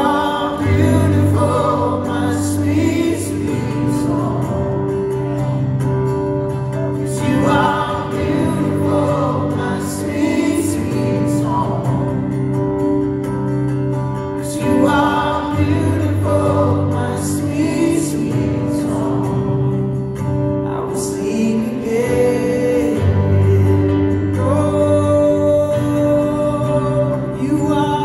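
Live acoustic Christian music: singing over sustained instrumental chords.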